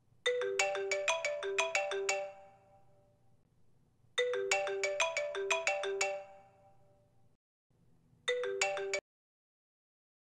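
Smartphone alarm tone: a short melody of quick, bright notes, played twice and then cut off partway through a third time as the alarm is silenced.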